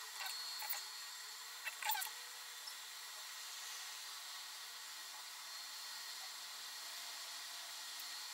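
Faint handling sounds of spice being sprinkled by hand over chicken in a glass baking dish: a few soft clicks and short squeaks in the first two seconds, then only a steady hiss.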